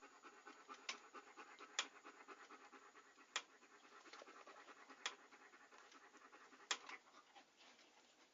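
Near silence with faint rustling and five soft, sharp clicks spaced one to two seconds apart.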